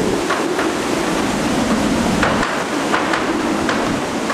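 Typhoon-force wind and driving rain, a loud, continuous rush. Irregular sharp knocks and rattles come through it every half second or so.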